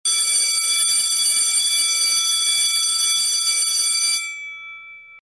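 Electric alarm bell ringing loudly and steadily for about four seconds, a rattling clang with several ringing tones. It then stops, its tone dying away for about a second before cutting off.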